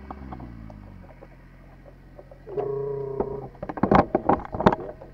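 Close handling noise of a lawn mower's plastic-and-mesh grass catcher being moved and fitted: a run of sharp clicks and knocks in the second half. A brief steady hum comes just before them, and a faint low drone fades out about a second in.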